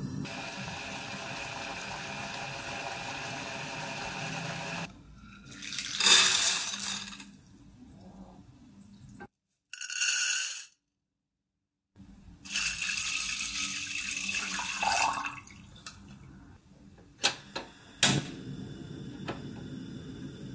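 Water running and being poured in a kitchen, in several short cut-together stretches, with a brief clatter of cooked azuki beans tipped from a sieve into a saucepan about ten seconds in and a few sharp clicks near the end.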